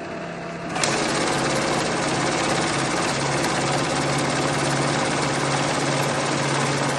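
Samuto Model-180 banknote counting machine running a stack of bills through its feed. A low motor hum comes first, then about a second in the rapid, even flutter of notes passing through takes over and holds steady.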